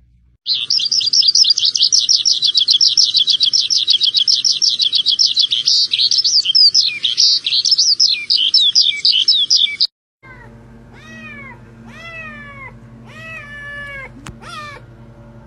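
A loud, rapid, high-pitched chirping chatter lasting about nine seconds. It stops suddenly, and then comes a run of six or seven short mews, each falling in pitch, typical of a kitten.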